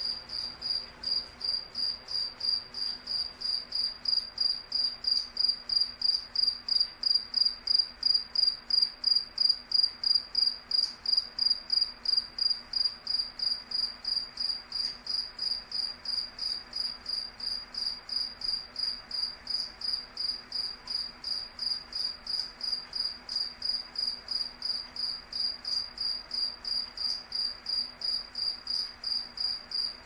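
A cricket chirping steadily, high-pitched chirps evenly spaced at about three a second, over a faint low hum.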